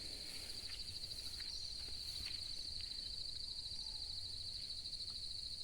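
An insect trilling steadily in the bush: one continuous high, finely pulsing note, fairly faint, over a low background hiss.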